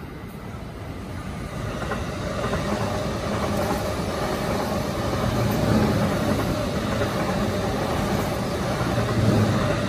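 Electric commuter train approaching and passing: a steady rumble of wheels on rails with a faint steady hum, growing louder over the first two seconds and then holding.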